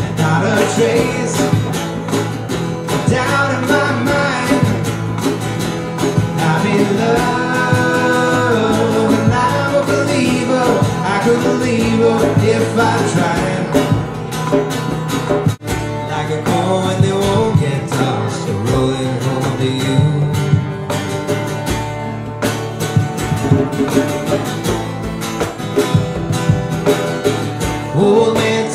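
Live acoustic music: a strummed acoustic guitar with a hand drum and singing. The sound drops sharply for an instant about halfway through, where one song clip cuts to the next.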